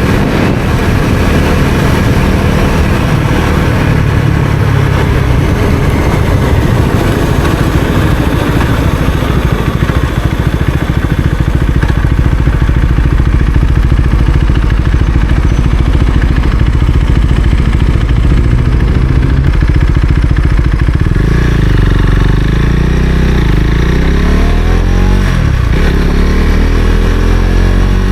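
2020 Husqvarna Svartpilen 401's single-cylinder engine running on the move, loud and steady at first. In the last third its pitch dips and rises several times as the revs fall and climb again.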